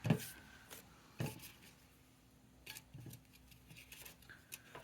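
Scrapbooking papers and small embellishments being handled and set down on a craft desk: a few light taps and short rustles, the sharpest right at the start.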